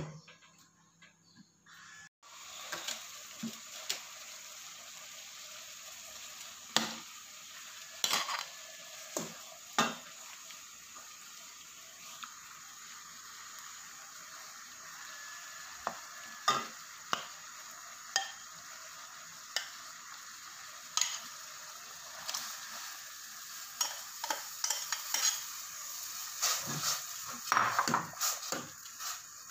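Metal spoon and ladle clinking and scraping against a bowl and an aluminium pot as mince is spooned into water and stirred, over a steady hiss that starts about two seconds in. The clinks come singly at first and crowd together near the end, when the ladle stirs the pot.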